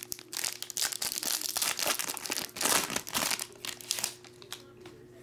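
Foil trading-card pack wrapper crinkling and tearing as it is ripped open by hand; the crackling dies down about four seconds in.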